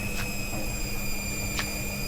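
Old Hotpoint washing machine spinning at full speed: a steady high motor whine, just settled at top pitch, over a low hum, with a couple of short ticks from the battered drum. The drum hangs loose, one suspension spring probably barely holding it.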